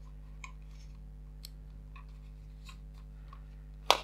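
Faint scattered clicks and taps of hands handling a Canon Legria HF R806 camcorder's plastic body over a low steady hum, then a sharp, much louder click near the end as its flip-out LCD screen is shut against the body.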